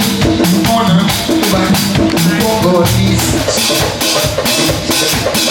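Background music with a steady drum-kit beat and a melodic line.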